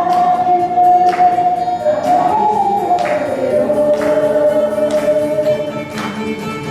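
Ocarina ensemble playing a slow melody in long held notes while a group of voices sings along, with a sharp beat about once a second.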